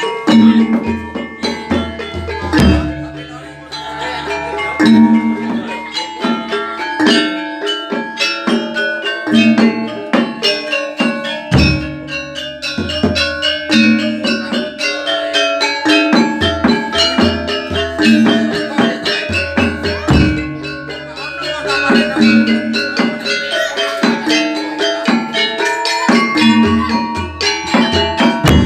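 Javanese gamelan ensemble playing jaranan dance music: struck bronze gongs and metallophones ringing over drum beats in a fast, steady rhythm.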